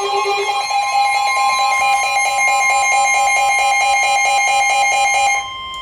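Emergency alert attention tones announcing a new severe thunderstorm warning: a steady high tone overlapped by a rapidly pulsing alarm tone. The pulsing tone stops about five and a half seconds in while the steady tone goes on.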